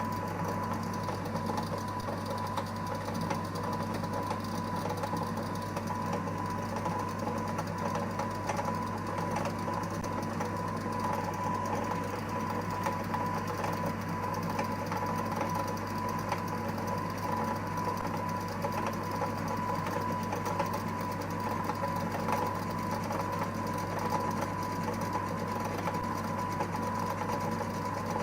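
EMCO Compact 5 lathe running a facing cut under CNC control, its spindle motor and stepper-driven cross slide giving a steady hum with a steady whine.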